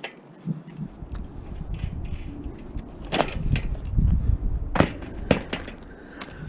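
Scrap metal knocked and clanked about as it is handled, with a few sharp strikes over a low, irregular rumble.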